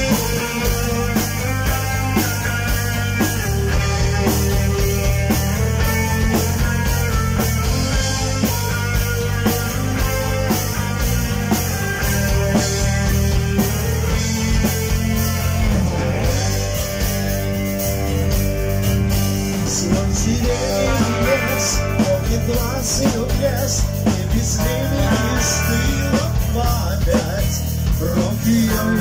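Live heavy metal band playing: electric guitar, bass guitar and drum kit through the amplifiers, with a man singing into a microphone.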